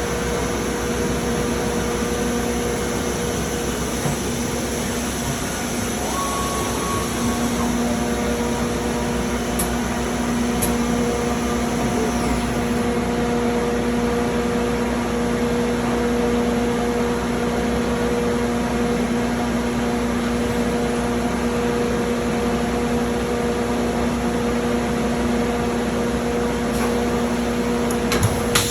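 Hurco VMX 42UI five-axis vertical machining center running: a steady machine hum and hiss carrying several steady whining tones, the lowest of which grows stronger about seven seconds in.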